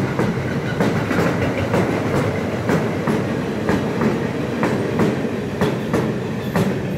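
Double-deck car-carrier freight wagons rolling past: a steady rumble of steel wheels on rail, with clickety-clack as the wheels strike the rail joints in quick pairs about once a second.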